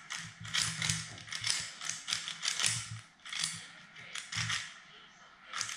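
Puzzle cube being turned fast by hand: runs of quick plastic clicks and clacks as the layers snap round, broken by short pauses.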